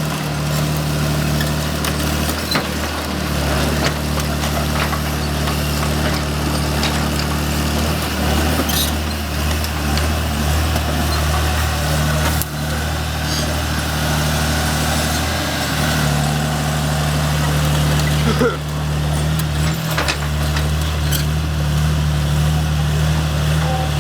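Diesel engine of an O&K RH6 hydraulic excavator running steadily under load, with a few sharp knocks and cracks.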